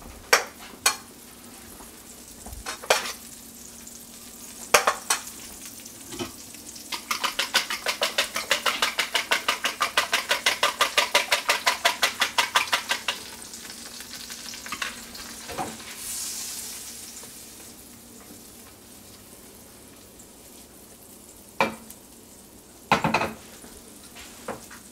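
Eggs being beaten in a bowl: a fast, even run of strokes, about seven a second, lasting some six seconds. Scattered clinks and knocks of kitchen utensils come before and after it.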